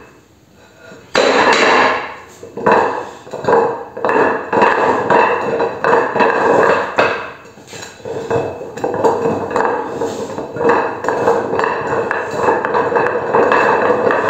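Rusty steel brake disc, the base of a homemade coil-spring stool, rolling and scraping on its rim over concrete paving stones as the stool is tilted far over. It grinds and clatters with a metallic ring, starting about a second in and going on in stretches with short pauses.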